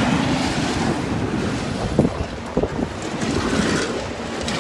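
Wind buffeting a phone microphone over the rumble and road noise of a semi-truck (18-wheeler) driving past close by on a wet street, with a couple of brief knocks around the middle.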